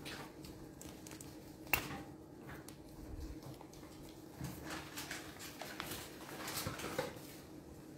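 Quiet room with scattered small clicks and handling rustles, and a sharp click a little under two seconds in.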